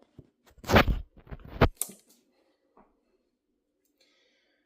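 Two heavy knocks in the first two seconds, then a faint steady low hum.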